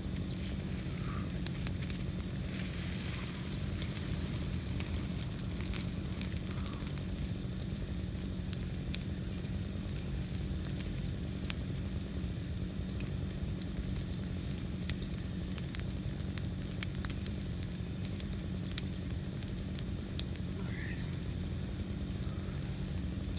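Brush burn pile of green interior live oak branches burning, crackling with many scattered sharp pops over a steady low rumble.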